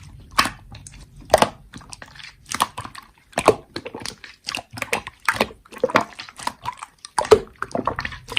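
Slime being squeezed and pressed by hand, making an irregular run of sticky wet clicks and pops.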